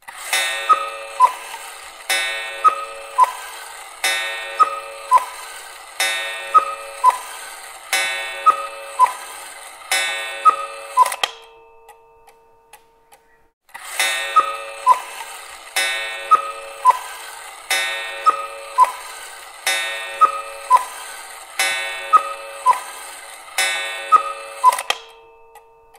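Cuckoo clock calling the hour: six two-note cuckoo calls, high then lower, each with a ringing strike, about two seconds apart. After a pause of about two seconds with faint ticking, it calls six more times.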